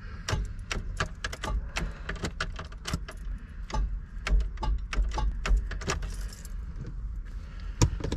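Keys jangling and clicking irregularly, about two to three clicks a second, as the Triumph Stag's ignition key is worked and the car fails to start, over a low rumble.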